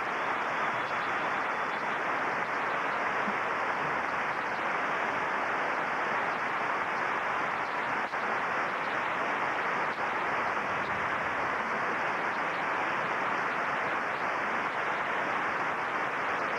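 Large crowd applauding steadily, a dense even wash of clapping.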